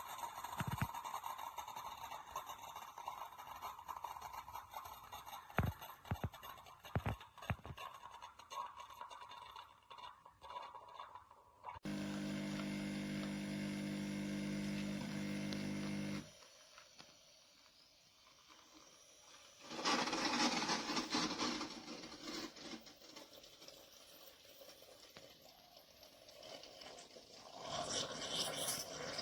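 Tassimo pod coffee machine in use: handling noise with scattered clicks, then the brewing pump running with a steady hum for about four seconds before cutting off sharply. Later come bursts of hissing.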